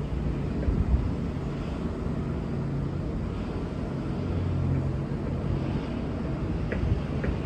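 Steady low engine drone over outdoor background noise, with a couple of faint clicks near the end; no horn sounds.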